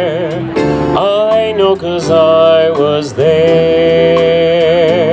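Live band playing the closing bars of a slow ballad: long held chords with vibrato, a short sliding phrase in the middle, over a light steady beat of about two ticks a second.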